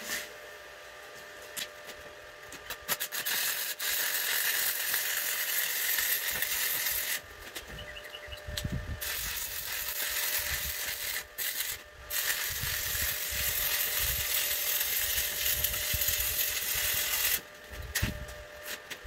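Stick-welding arc of a 5/32-inch 6011 electrode crackling and hissing. After a couple of brief strikes, the arc catches a few seconds in and burns steadily with a few short breaks, then cuts off suddenly near the end.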